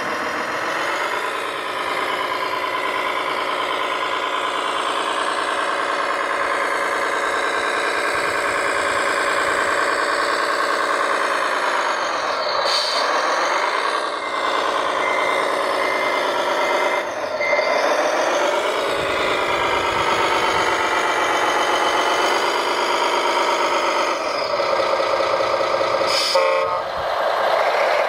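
Radio-controlled dump truck's electronic sound module playing a diesel engine running and revving, its pitch dropping and rising again several times. A steady beeping comes in for a few seconds about halfway through, and a short horn-like toot sounds near the end.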